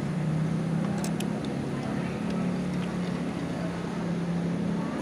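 Steady low drone of a running motor, drifting slightly in pitch, with a few faint clicks about a second in.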